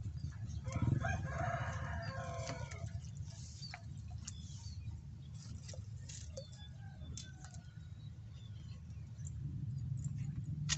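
A rooster crowing once, a call of about two seconds near the start, over a steady low rumble.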